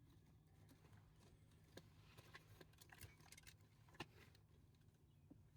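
Near silence with faint scattered clicks and rustling of wiring and connectors being handled under a truck's dash, the sharpest click about four seconds in.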